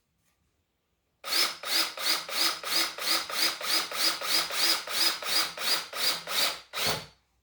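Cordless drill driver driving a screw into a 2x4 frame board without a pilot hole. It starts about a second in, pulses about three to four times a second, and stops shortly before the end as the screw is driven flush.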